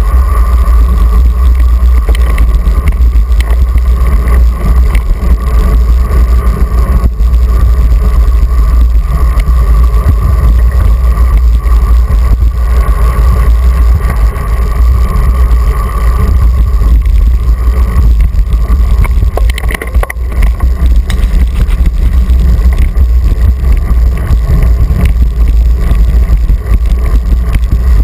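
Wind buffeting the microphone of a bicycle-mounted GoPro at riding speed: a loud, steady low rumble, with a faint steady hum above it.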